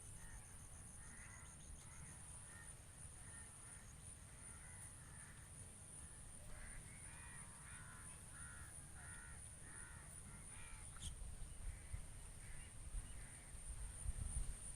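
Crows cawing: a long run of short harsh calls, thickest in the middle, over a steady high thin whine. A low rumble grows louder near the end.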